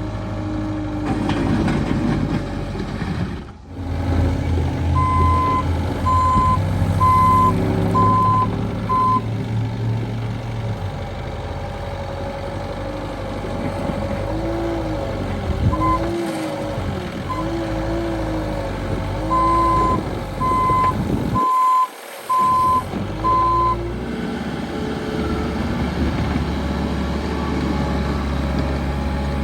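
JCB 1CXT compact tracked backhoe loader working, its engine running and rising and falling in pitch under load. A reversing alarm beeps in two runs of about five beeps each, about a second apart. The sound breaks off abruptly twice.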